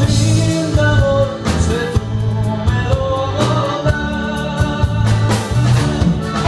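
Live band playing a song, with accordion, guitars and drum kit, and a man singing.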